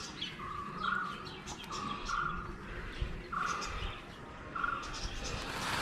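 A bird repeating a two-note call, the second note higher than the first, about once every second or so, with other small birds chirping.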